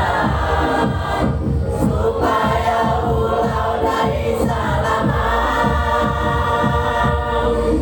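A choir singing sustained held notes over a musical accompaniment with a steady low beat.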